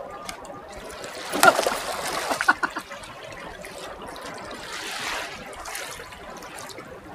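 Small waves lapping and trickling on a sandy shore, with louder splashing about one and a half to three seconds in as a man wades into the shallows.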